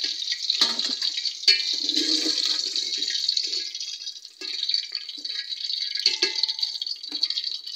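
Hot oil sizzling steadily in an aluminium pot as fried potato pieces are lifted out with a wire skimmer, with a few sharp metallic clinks of the skimmer against the pot.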